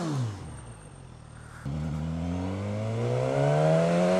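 2015 Suzuki GSX-S1000's inline-four engine, heard from the rider's seat. A rev blip falls away at the start and the engine runs quietly for a moment. Then, a little before halfway, it comes back on the throttle with a sudden step up and accelerates with a steadily rising note.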